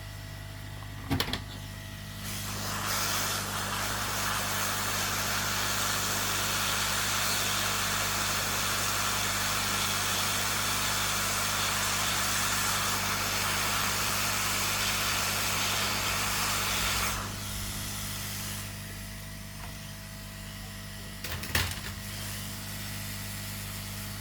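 Hot air rework station blowing a steady hiss of air for about fifteen seconds, desoldering a component from a laptop motherboard, then dying away. A sharp click comes shortly before the air starts and another a few seconds after it stops.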